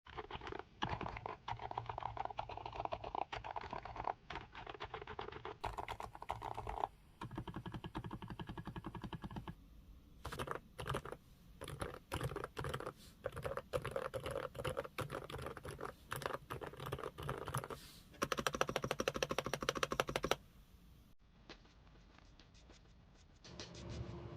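Fast typing on a computer keyboard: rapid runs of key clicks with short pauses, stopping a few seconds before the end.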